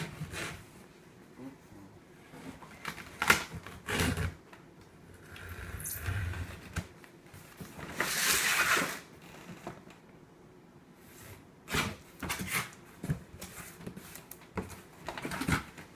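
A cardboard box being opened and its contents handled: scattered knocks and clicks, with a longer rustling scrape about eight seconds in.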